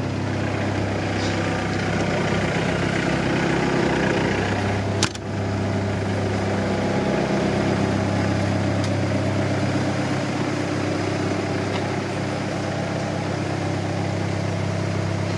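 Hyundai 80CR-9A excavator's diesel engine idling steadily. A single sharp click sounds about five seconds in.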